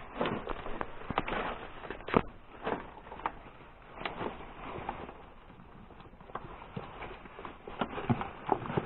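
Irregular footsteps and crunching on a gritty, debris-strewn attic floor, with scattered clicks and scuffs from moving about.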